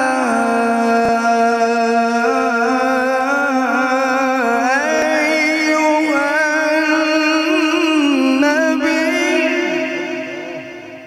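A male qari reciting the Quran in the drawn-out melodic mujawwad style. It is one long phrase from a single voice, held on sustained notes with rising and falling ornaments, fading out near the end.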